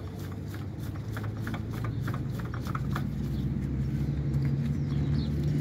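Oil filter being spun by hand onto its threaded mount on a ride-on mower engine, giving a run of irregular light clicks and rubbing from the gloved hand on the filter can. Under it is a low, steady hum that grows slowly louder.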